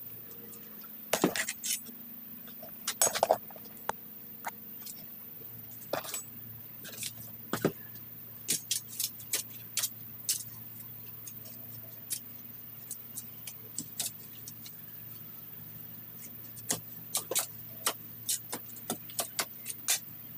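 Metal hand weeding tool striking and scraping into mulch and soil as weeds are dug out, giving irregular sharp clicks and scrapes, sometimes in quick clusters.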